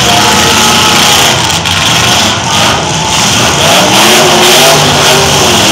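Several demolition-derby trucks' engines running loud together, one of them revving up and back down about three to five seconds in.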